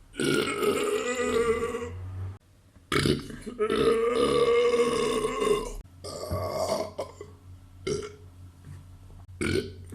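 Beer burps, one after another: two long drawn-out belches of about two and three seconds, then three shorter ones.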